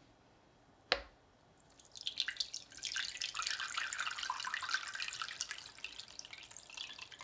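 Water pouring from a plastic watering can into a planter box packed with greenery, trickling and splashing as the container fills. The pour starts about two seconds in, after a single light knock about a second in.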